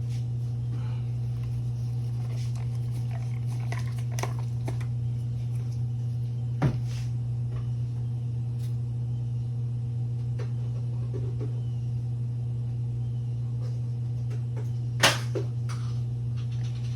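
A steady low hum that does not change, with a few light clicks, a sharp knock about seven seconds in and a louder one near fifteen seconds.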